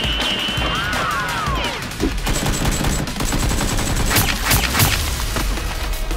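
Rapid, continuous gunfire, like automatic weapons firing in a fusillade.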